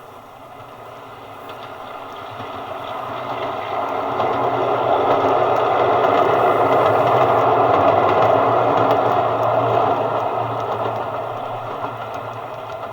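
A train passing by. The sound grows louder, peaks a little past halfway, then fades, with the rattle and clatter of wheels on the rails.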